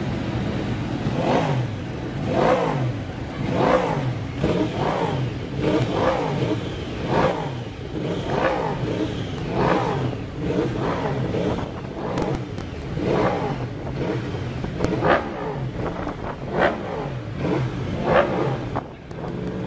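Racing motorcycle engines revving up and falling back again and again, a new rise and fall about every second.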